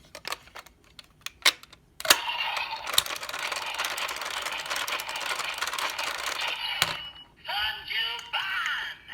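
Several sharp plastic clicks as a Sentai gear is set into the DX Zenkai buckle and the buckle is worked. Then the buckle plays its transformation sound through its small built-in speaker: a loud electronic rushing effect for about five seconds, followed near the end by a synthesized voice call and jingle.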